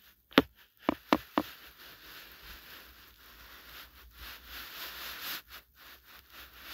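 Handling noise: four sharp taps or knocks in quick succession during the first second and a half, then soft, uneven rustling and small ticks.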